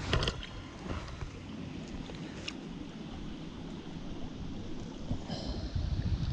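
Small stream running, with a few sharp clicks and knocks of handling and a short high-pitched sound near the end.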